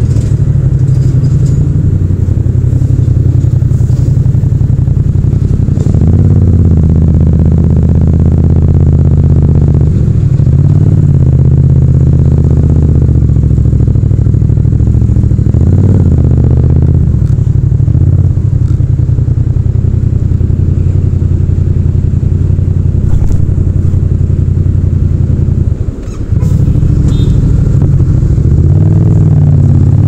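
Yamaha MT-07's parallel-twin engine running at low revs in slow traffic, its note rising and falling with the throttle. The engine sound dips briefly a few seconds before the end.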